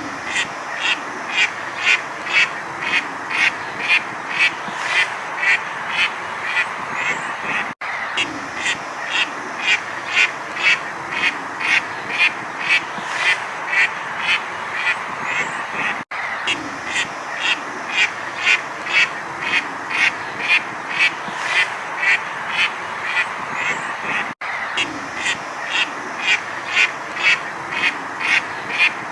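Ducks quacking in a steady run of sharp quacks, about two or three a second, over a continuous background of more duck calls. The sound cuts out briefly three times, about every eight seconds, where the recording loops.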